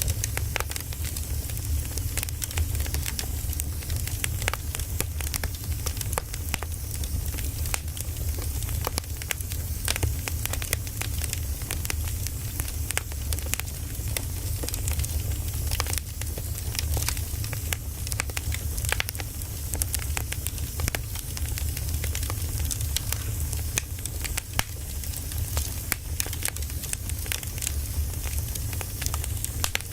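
Firewood burning: irregular crackles and pops over a steady low rumble of the flames.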